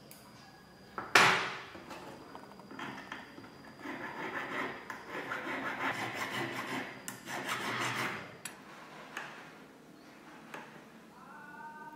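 Flat needle file rasping in repeated strokes across the edge of a silver ring band for about five seconds, after a sharp knock about a second in. A brief metallic ping near the end.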